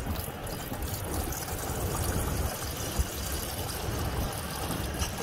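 Water pouring in a steady trickle from a plastic bottle into a small metal camping kettle as it fills.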